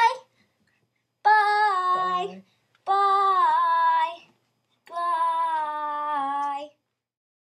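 A high-pitched voice sings three long held notes, the last one the longest, with short pauses between them.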